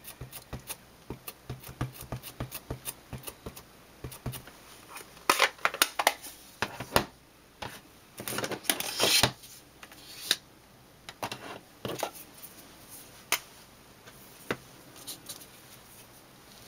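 Small clicks and taps of craft tools and cardstock being handled on a work mat, with a few louder scuffing rustles about five and nine seconds in and single sharp clicks in the second half.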